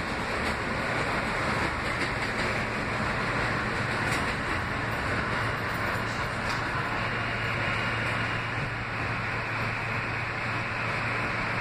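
Inside an R160B subway car running on the rails: a steady rumble and hiss of the wheels and car, with a low motor hum.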